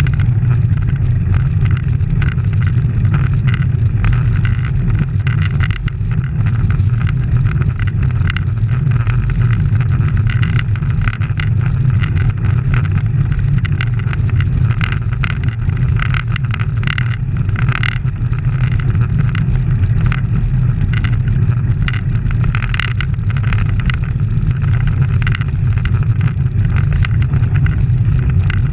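Steady wind rush and road rumble on the microphone of a camera mounted on a racing bicycle rolling at speed.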